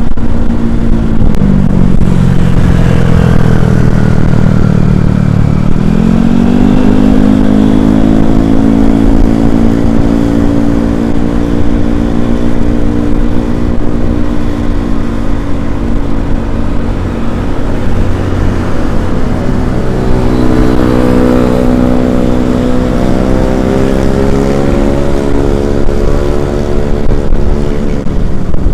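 A vehicle engine running under way, with heavy wind rumble on the microphone. Its revs drop about a second in, climb again around six seconds and hold steady, then rise once more past twenty seconds and fall away near the end.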